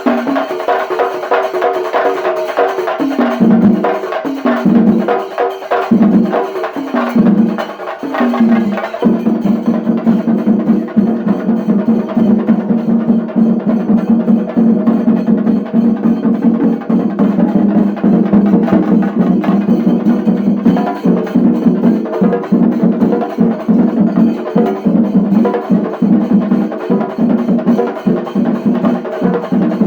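Shinkari melam: Kerala chenda drums beaten with sticks in a loud, fast rhythm. The rhythm is choppy with short breaks for the first several seconds, then becomes a continuous rapid roll from about nine seconds in.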